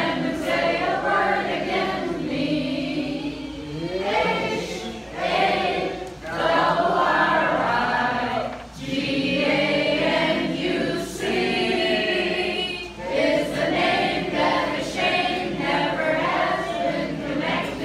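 Sing-along: a roomful of voices singing an Irish song together, led by a man singing into a microphone, in long phrases with brief breaks for breath.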